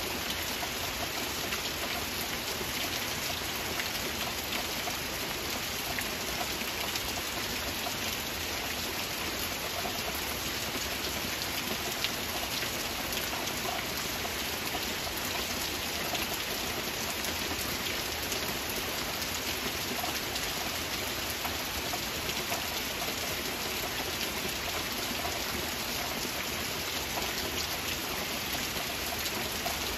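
Steady rain falling: an even hiss with many small drop impacts, unchanging throughout.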